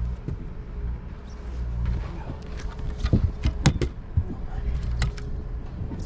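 Sharp knocks and clatter on a fishing boat, loudest about three seconds in and again at five, over a steady low hum and a faint steady whine, while a big bass is fought alongside.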